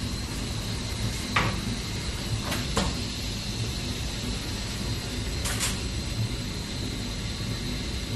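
Thermal transfer ribbon slitter-rewinder running with a steady low hum and a faint high whine. Sharp clacks come about a second and a half in, twice close together near three seconds, and once more past five seconds.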